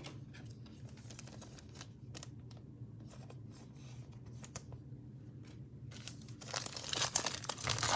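Faint scattered clicks of trading cards being handled, then a foil card-pack wrapper crinkling from about six and a half seconds in, louder toward the end.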